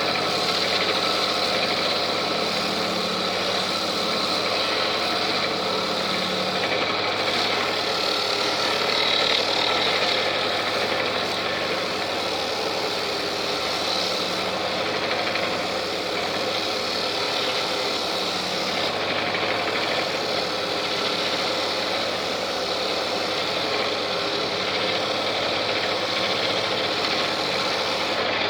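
Woodturning lathe running steadily: a constant motor hum under an even, noisy hiss while the last stage of a turned wooden pot is worked.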